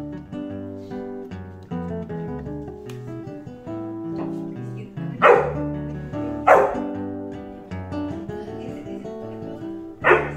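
Bernese mountain dog puppy barking three times, a single bark about five seconds in, another a second later and a third near the end, at a cat it cannot see. Background music plays throughout.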